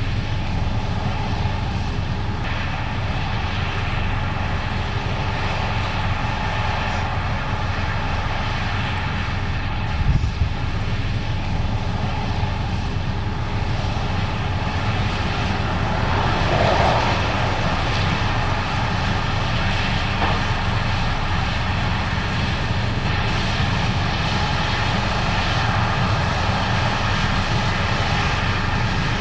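Case IH 8250 Axial-Flow combine running steadily under load while harvesting corn, a continuous engine and machinery drone with a brief swell about 17 seconds in.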